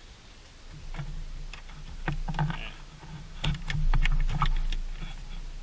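Wiring being pulled and worked in behind an interior trim panel: irregular clicks, knocks and rustles of handling, growing busier about halfway through, over a steady low hum.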